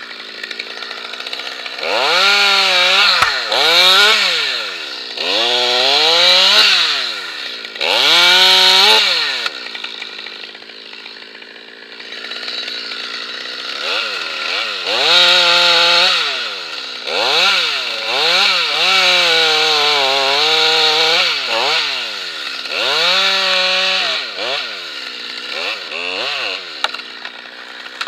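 Stihl top-handle chainsaw revved in repeated bursts, each climbing to full speed and falling back, with a quieter lull in the middle. Around two-thirds of the way through the pitch sags and holds lower, as if the chain is loaded in a cut through beech wood.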